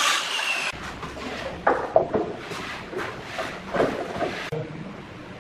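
Handheld circular saw whining through hardwood, cutting off abruptly under a second in. Then a run of irregular wooden knocks and scrapes as a hardwood stair tread is set and shifted into place on a concrete step.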